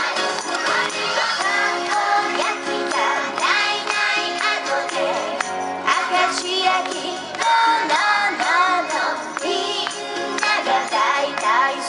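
A pop song played through the stage's PA speakers: a young female voice singing over a backing track with jingling percussion.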